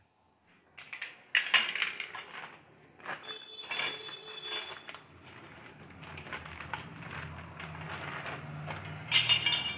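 Packaging crinkling and rustling in bursts as small metal garden hand tools are pulled out of it, with light clinks of metal, about a second in, again a few seconds later and near the end.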